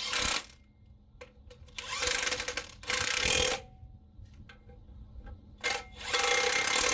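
Power tool run in about five short bursts, each under a second, with pauses between.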